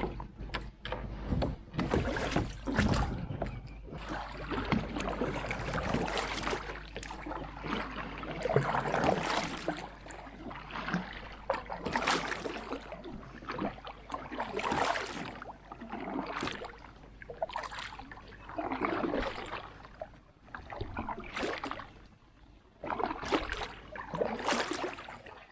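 Canoe paddle strokes dipping and splashing through calm lake water, about one stroke every two to three seconds.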